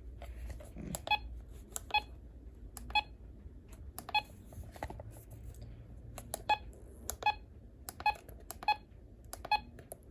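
Buttons being pressed on a RadioShack 12-262 weather alert radio while scrolling its menu. Each press gives a short click with a brief key beep, more than a dozen of them at irregular intervals.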